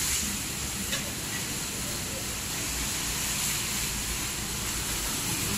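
Steady outdoor background noise: a constant hiss over a low rumble, with one faint click about a second in.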